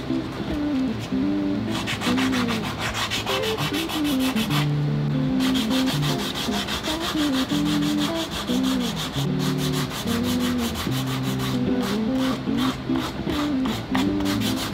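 A wooden rifle forearm being worked by hand with abrasive, rhythmic back-and-forth strokes, as in sanding, pausing briefly about five seconds in, over background music.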